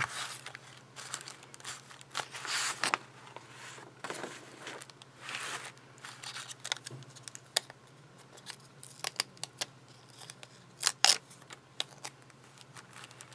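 Hands rustling, smoothing and folding a thin paper coffee-filter envelope, with soft crinkles in the first few seconds and scattered light clicks and taps later, the sharpest about eleven seconds in.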